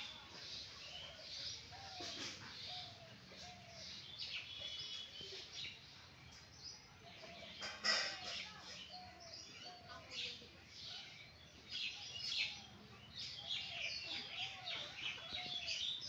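Birds calling: a continuous chorus of short high chirps and twitters, with a short, arched lower note repeating about once a second.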